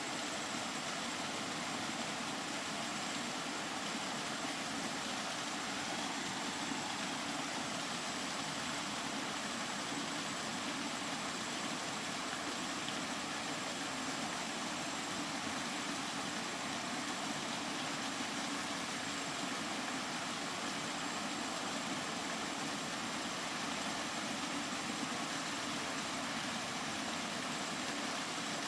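Steady rain falling, an even hiss that doesn't change.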